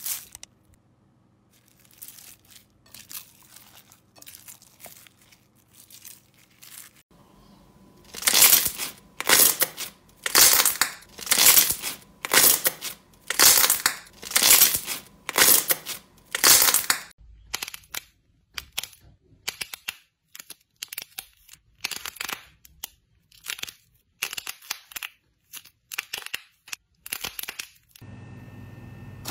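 Slime being pressed and squished by hand, making crinkling, crackling sounds in repeated strokes. The strokes are soft at first, loudest through the middle, then quicker and softer again.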